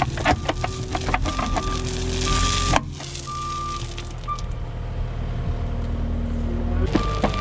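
Cat 289D skid steer's diesel engine running as it works crushed concrete, with crunching clicks from the stone and its backup alarm beeping about once a second. About three seconds in, the crunching stops abruptly, leaving a smoother engine hum whose pitch sinks slightly. The beeps drop out a second or so later, and crunching and beeping return near the end.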